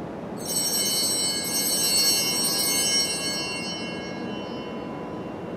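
Altar bells rung at the elevation of the chalice during the consecration at Mass. A bright cluster of high ringing tones starts about half a second in, is shaken again over the next couple of seconds, and then fades away.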